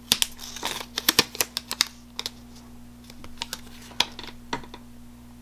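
A removable paper sticker strip being peeled up and pressed back down on a planner page: quick crisp crackles and small clicks of paper under fingertips and nails. The clicks are densest in the first two seconds, then come in a few scattered taps.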